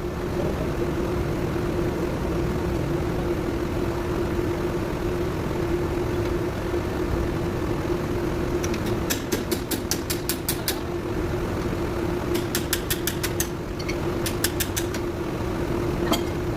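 Engine idling steadily with a constant hum, joined about halfway through by three short runs of quick, sharp metallic ticks.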